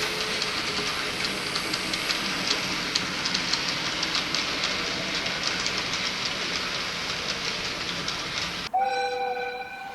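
Recorded sound of a real train running: a steady rushing noise with rapid wheel clicks over the rail joints. Near the end it cuts off suddenly into a two-tone train horn, held for about a second.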